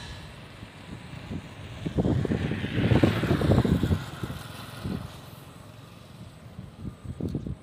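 Wind buffeting the microphone in uneven gusts, strongest from about two to four seconds in.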